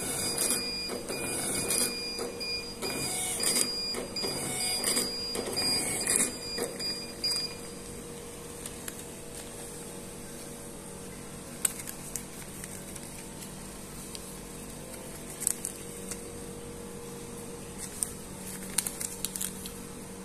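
Queue-ticket kiosk's built-in thermal ticket printer printing and feeding out paper tickets, a busy mechanical whirr with a thin steady high tone, stopping after about seven and a half seconds. After that only a few isolated sharp clicks.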